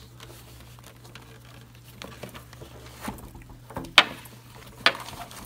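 Hands unfastening and handling a leather-covered cylindrical case: soft rustling of leather with a few clicks and knocks, the sharpest about four seconds in.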